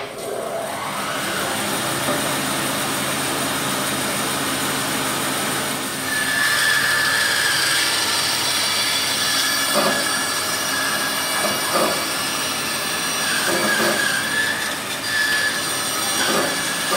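Laguna bandsaw with a Resaw King blade running while resawing a tall board of curly maple fed along the fence. A steady high whine joins the machine noise about six seconds in as the blade works through the wood.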